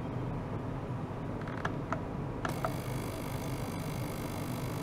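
Small tabletop ultrasonic cleaner running with a steady low hum and a few faint clicks; about two and a half seconds in, a thin high hiss joins.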